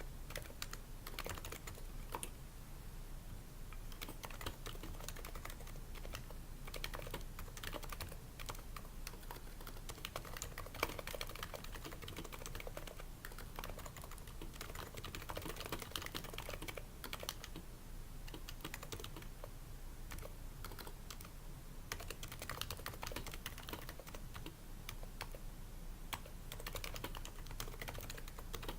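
Continuous typing on an HHKB Pro 2 keyboard with Topre electrostatic-capacitive switches, a steady stream of keystrokes. The switches are fitted with o-rings to damp the bottom-out, the slider rails are lubed and the case is lined with shelf liner to absorb sound.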